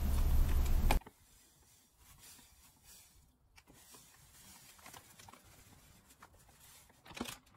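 A steady low hum cuts off suddenly about a second in. It leaves faint rustling and pattering of ground coffee poured from a foil bag into a glass storage jar, with the foil bag crinkling louder near the end.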